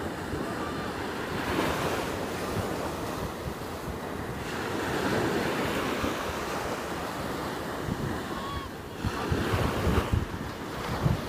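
Small Gulf of Mexico waves breaking and washing up onto a sandy beach, the surf swelling every few seconds. Wind buffets the microphone, most strongly near the end.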